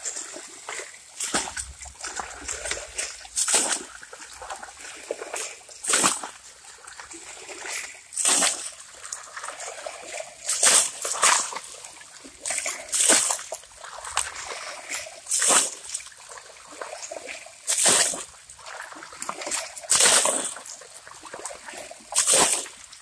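Water thrown by the scoopful onto a sandy gravel bank, a splash every two seconds or so, with water trickling back down between throws. The bank is being washed down to sluice out gold-bearing sand.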